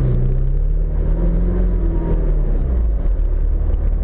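Off-road vehicle's engine running while under way, its pitch dipping slightly early on and then holding steady, over a constant low rumble.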